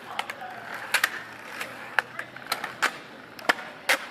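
About a dozen sharp clicks and taps at an irregular pace, some in quick pairs, close to the microphone.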